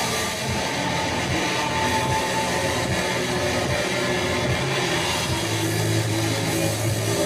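Live experimental noise music: a dense, steady wash of noise with sustained drone tones layered through it, and a low held tone coming in about five and a half seconds in.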